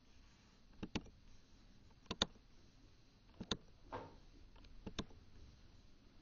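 Computer mouse clicking: four quick press-and-release double clicks spaced a little over a second apart, each marking a boundary point.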